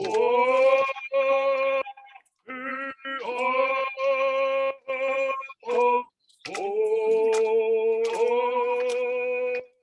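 Ceremonial song: singing in long held notes, in several phrases with short breaks between them.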